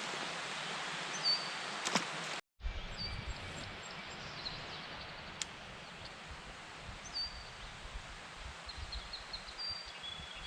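Outdoor ambience: a steady hiss of background noise with short, high bird chirps and whistles scattered through it. The sound cuts out briefly about two and a half seconds in, and afterwards a low rumble comes and goes under the chirps.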